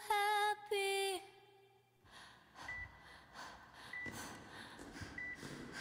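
A woman's sung note, held with a slight waver, ends about a second in. After a brief near-silence, a faint high electronic beep repeats about every second and a quarter over soft low thumps.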